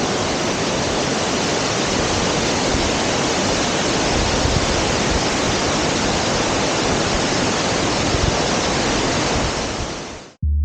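Steady loud rushing of the Shirahige (Whitebeard) Falls, groundwater pouring about 30 m from cracks in a lava layer into the Biei River. The sound fades out quickly just before the end.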